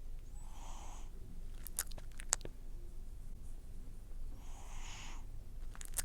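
An elderly cat snoring lightly in its sleep: two soft, noisy breaths about four seconds apart. Between them come several sharp mouth clicks, like lip smacking.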